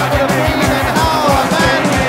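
Background music with a steady, even beat and a melody line over it.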